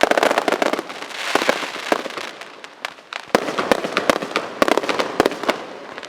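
Aerial fireworks display: a dense run of sharp bangs over a constant crackle. The reports come every fraction of a second, with a loud burst right at the start.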